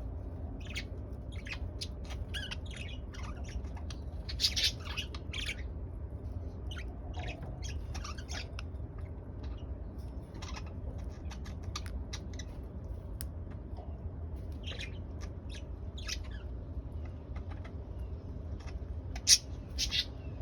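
Pet budgerigars chirping and chattering in short, scattered calls, louder about four and a half seconds in and again near the end, over a steady low hum.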